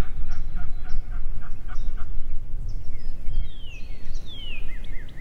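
Wind buffeting the microphone with a steady low rumble. Early on a distant run of about eight evenly spaced calls sounds, then a songbird sings two down-slurred whistles followed by a fast, repeated chipping phrase near the end.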